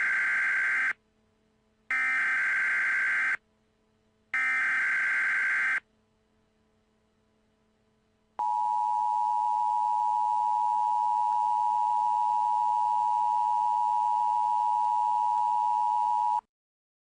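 Emergency Alert System tones: the SAME header's screeching digital data bursts, the last of three ending about six seconds in. After a pause of about two and a half seconds comes the two-tone attention signal, a steady dual-tone buzz held for about eight seconds that cuts off suddenly.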